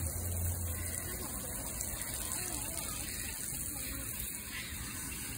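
Faint, indistinct chatter of distant people over steady outdoor background noise, with a low hum during the first second.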